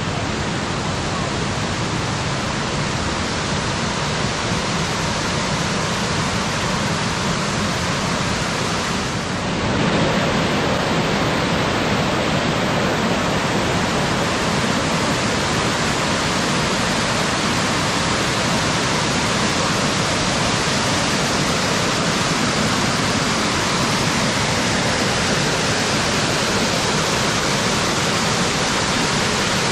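Waterfall rushing, a steady wash of falling water that gets slightly louder about ten seconds in.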